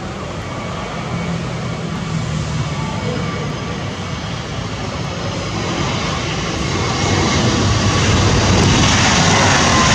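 Airbus A320-232 jet airliner with IAE V2500 turbofan engines, running steadily as it touches down and rolls out along the runway. It gets louder over the last few seconds.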